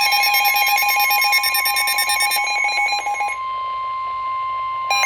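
Weather-radio warning alert: a steady single tone of about 1 kHz, the NOAA Weather Radio 1050 Hz alarm tone, sounding throughout. A second, rapidly pulsing multi-tone electronic beeping plays over it for the first three seconds or so, stops, and starts again near the end.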